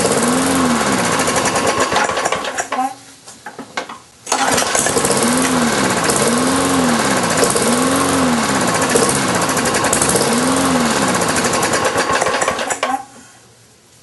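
Briggs & Stratton lawn mower engine running rough and loud, its speed surging up and down about once a second. It drops out about three seconds in, picks up again and cuts off near the end. The owner puts the engine's trouble down to a worn carburetor diaphragm.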